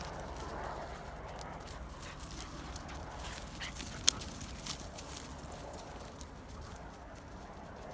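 A kelpie puppy and another dog running and scuffling through dry fallen leaves and grass, their paws rustling and crunching the leaves. There is one sharp snap about four seconds in.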